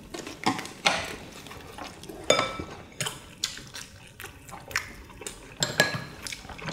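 Spoons and chopsticks clinking and tapping against bowls and dishes during a meal, in scattered irregular taps. The loudest clink, about two seconds in, rings briefly.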